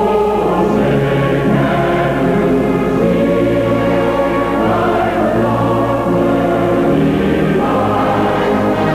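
Choir singing slow, sustained chords, the held notes changing every second or two.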